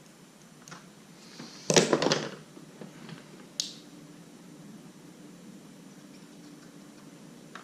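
Handling noise from trimming the rubber canopy seal: a short loud cluster of clicks and scrapes about two seconds in, then a single sharp click a couple of seconds later, over a faint steady hum.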